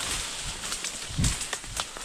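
Dry brush and branches being handled, rustling and crackling with a few sharp snaps, and a heavy thud about a second in.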